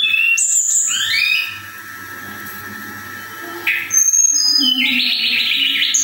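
A caged tledekan singing: a run of clear whistled notes that step down in pitch, a pause of about two seconds, then another phrase of whistles that ends in a rapid buzzy trill.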